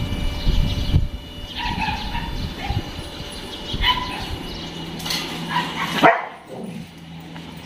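Several dogs yipping and barking in short, high calls, the loudest about six seconds in, over a steady low hum in the second half.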